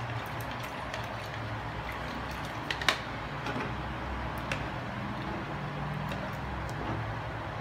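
A steady low hum, with a few light clicks and scrapes of a plastic spatula against a plastic jug of batter. The sharpest click comes about three seconds in.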